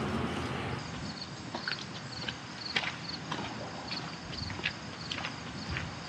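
Footsteps walking, as a run of irregular short steps, with a faint high chirping that repeats a few times a second behind them.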